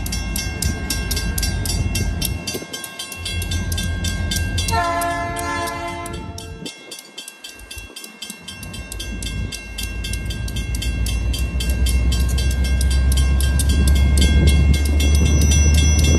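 Railroad crossing bell ringing with rapid, even strikes. About five seconds in, a diesel locomotive's horn sounds one blast of about two seconds. The deep rumble of the passing diesel locomotive grows louder toward the end.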